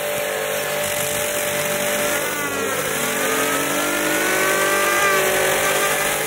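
Pressure washer jet hissing loudly against a fidget spinner, spinning it up to very high speed: a whine from the spinner climbs in pitch over the first few seconds and then holds. The steady hum of the pressure washer's motor runs underneath.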